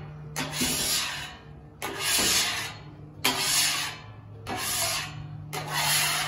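A scraper rasping across the steel cooking surface of a Camp Chef flat-top griddle in about five repeated strokes, each roughly a second long, clearing cooked-on residue from the plate.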